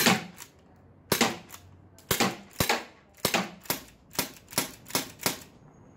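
UHC gas airsoft revolver fired double-action, each trigger pull turning the cylinder and dropping the hammer: about ten sharp shots, coming faster toward the end.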